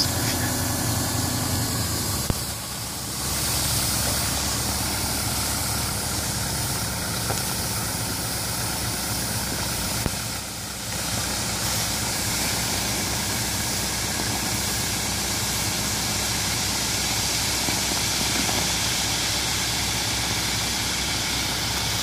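Tractor engine running steadily at idle while a raised tipping trailer pours a load of wheat, the grain making a steady hiss as it slides onto the heap.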